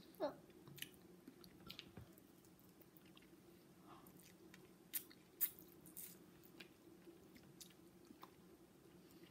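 Quiet chewing and wet lip smacking of people eating chicken adobo with their hands, gnawing meat off the bones. Scattered soft clicks run over a faint steady low hum, with the two sharpest smacks about five seconds in.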